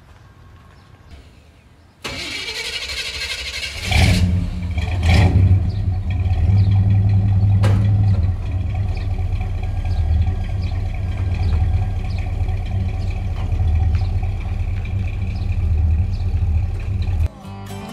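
1977 Chevrolet pickup engine being started: the starter cranks for about two seconds, the engine catches about four seconds in, and then it runs steadily with a deep rumble while the truck is eased under the camper.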